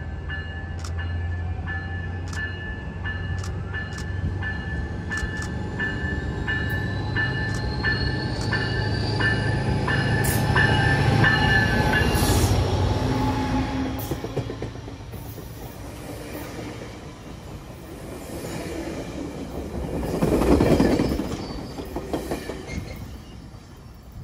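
COASTER diesel commuter train passing a station platform: a warning bell strikes about every 0.7 seconds while the train's rumble and rail noise build. The sound is loudest as the train goes by about 10–12 seconds in, where the bell stops. The rush of the passing cars then fades, with a brief loud surge near 21 seconds.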